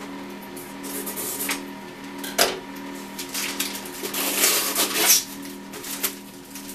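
Scissors snipping and a plastic label wrap crinkling as it is cut and peeled off a 2-liter plastic soda bottle, with a sharp snip about two and a half seconds in and the busiest crinkling between four and five seconds. A steady low hum runs underneath.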